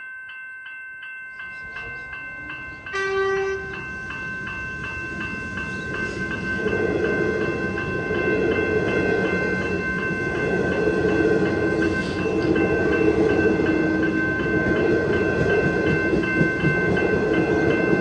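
Level-crossing electronic bell (a General Signals e-bell) ringing in rapid high dings. A train sounds a short horn blast about three seconds in, then passes through the crossing with a growing rumble of wheels and motors from about six seconds in.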